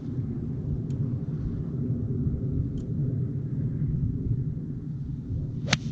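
Wind buffeting the microphone as a steady low rumble, then near the end one sharp crack of an iron striking the golf ball off the turf, a shot the players call a bit fat.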